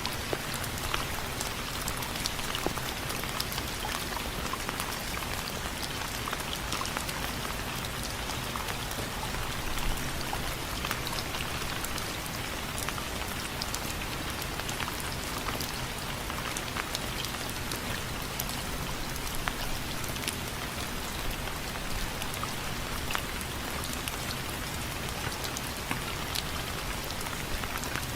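Steady rain falling, with many individual drops ticking sharply on a window frame over a constant hiss.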